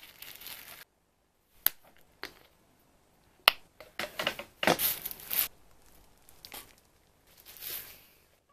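Handling a home hair-dye kit: crinkling plastic gloves and packaging and an applicator bottle being shaken, with a few sharp clicks, heard in short snippets broken off abruptly by cuts.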